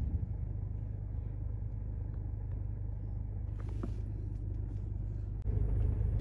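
Steady low rumble of a car heard from inside the cabin, with a few faint clicks; it gets louder about five and a half seconds in.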